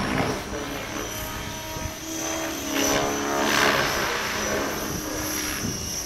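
Radio-controlled model helicopter flying overhead: steady high-pitched whine with rotor noise, swelling louder about three to four seconds in as it manoeuvres.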